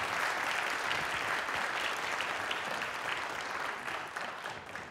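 Audience applauding steadily, thinning into a few scattered claps near the end.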